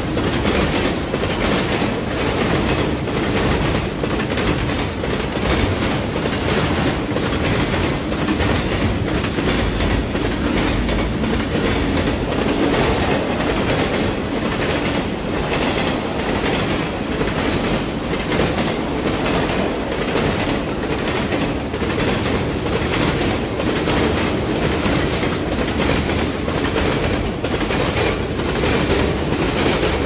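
Diesel train rolling past: a steady heavy rumble of the cars with a regular clatter of wheels over the rail joints.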